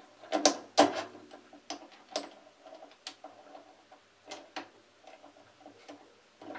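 Metal clicks and knocks from a Foreman TB1835 mini lathe's three-jaw chuck as it is loosened and a metal bar is taken out, turned round and set back in the jaws. The sharpest knocks come in the first second and again about two seconds in, with lighter ticks after.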